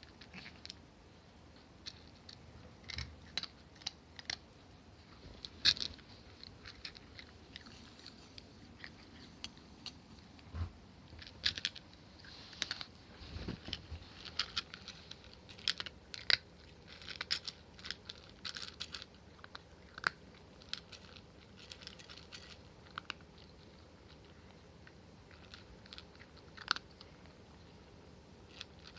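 A white cat snoring softly in its sleep: faint, irregular crackly breaths and small clicks, with no steady rhythm.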